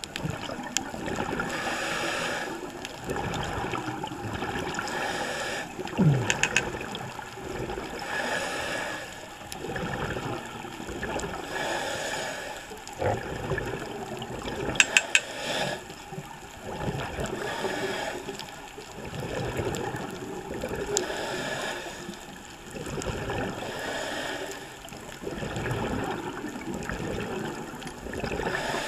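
Scuba breathing heard underwater through a regulator: a slow cycle every few seconds of inhaled hiss followed by gurgling exhaust bubbles. Twice a short cluster of sharp clicks stands out above it.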